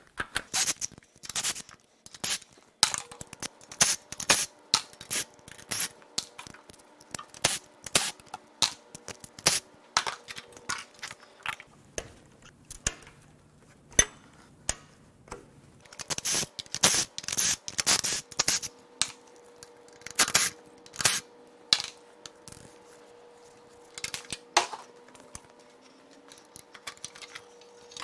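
Metal tools and parts clinking and clanking irregularly as bolts and brackets of the secondary air injection plumbing are worked loose on an engine. A faint steady hum runs underneath.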